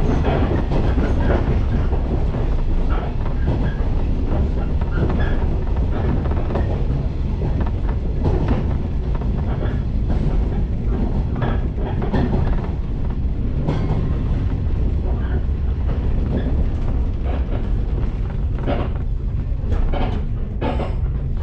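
Shinano Railway local train running on the rails, heard from inside the passenger car: a steady low rumble with repeated clicks of the wheels over rail joints. In the first moment a level-crossing warning bell fades as the train passes the crossing.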